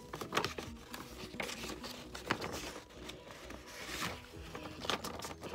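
Paper being handled and pulled open by hand: a string of short crinkles, rustles and tearing rips.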